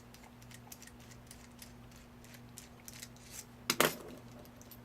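Faint small clicks of a Phillips screwdriver working the screw out of a padlock body, then near the end a sharp metallic clatter, two quick strikes, as a small metal part drops onto a hard surface.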